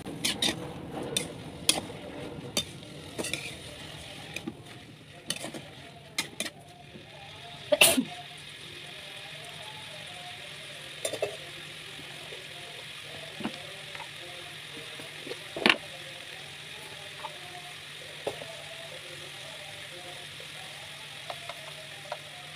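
A metal spatula knocking and scraping against a pan as papaya leaves are stir-fried, over a steady sizzle. The clatter is busiest in the first eight seconds, with the loudest knock about eight seconds in. After that the sizzle carries on with only a few clinks.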